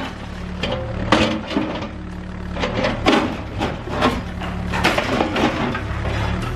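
Cat 305E2 mini excavator's diesel engine running steadily, with repeated sharp cracks, crunches and knocks of reinforced concrete being broken apart.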